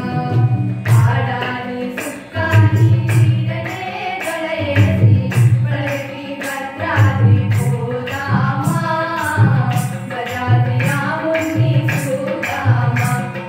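A small group of voices singing a devotional song together into microphones, accompanied by tabla with a deep bass stroke about every second.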